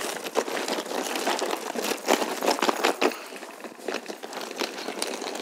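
Suitcase wheels and footsteps crunching and rattling over loose gravel in quick irregular clicks, which thin out about three seconds in as the suitcase comes to rest on the ground.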